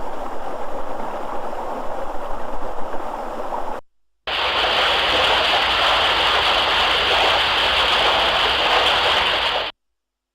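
Running water, as two separate clips: a rushing stream for about four seconds, then after a brief silent cut a steadier, hissier rush of water that stops shortly before the end.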